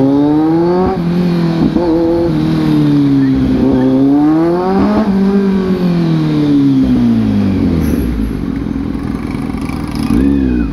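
Kawasaki Z900 SE inline-four engine through an aftermarket dual-pipe exhaust with the breadbox and catalytic converter deleted, revving up and down as the bike rides. It rises in pitch about a second in, climbs again until about five seconds in, then falls away as the bike slows.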